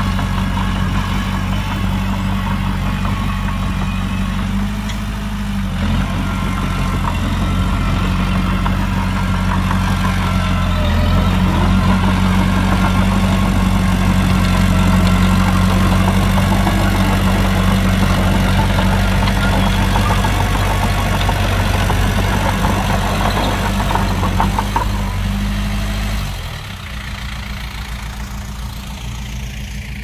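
Diesel engine of a heavy earthmoving machine running steadily. It grows a little louder about a third of the way in, then drops to a quieter, lower note a few seconds before the end.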